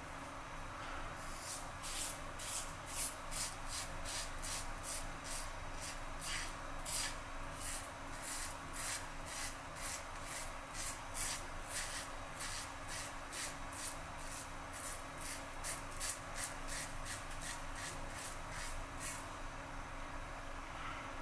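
Merkur 34G double-edge safety razor with a Rapira Platinum Lux blade scraping through lathered stubble in short repeated strokes, about two a second, stopping shortly before the end.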